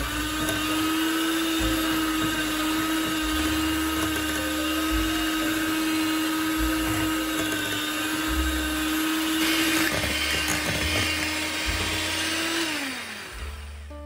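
Electric hand mixer running steadily, its twin beaters whisking eggs and sugar in a glass bowl. Near the end the motor is switched off and winds down with a falling whine.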